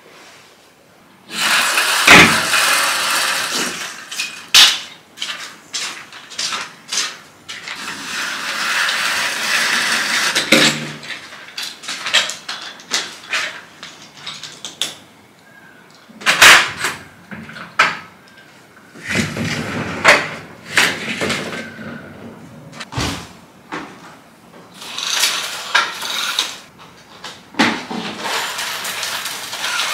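Rustling and scraping, broken by many sharp knocks and clicks, irregular throughout.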